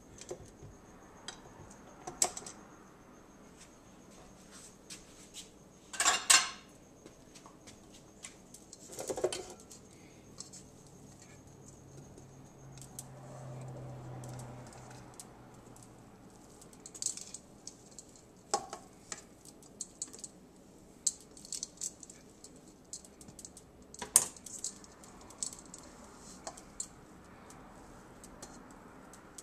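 Stainless steel KitchenAid mixer bowl clinking and knocking against another bowl as cookie dough is tipped and scraped out by hand, in scattered light clicks with a few louder clatters. A faint low hum runs for a few seconds in the middle.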